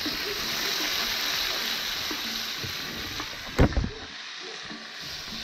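Stew sizzling and bubbling in a disco, a plow-disc pan, over a wood fire: a steady hiss, with one loud knock about three and a half seconds in.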